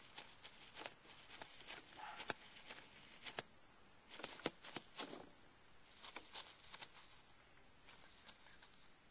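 Faint, irregular rustling and crackling of facial tissues as a chipmunk tugs them out of a tissue box, the crackles coming thick for most of the time and thinning out near the end.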